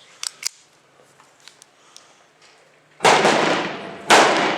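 Two light clicks, then two shots from a Sedco .22 LR pistol about a second apart, each dying away over about a second.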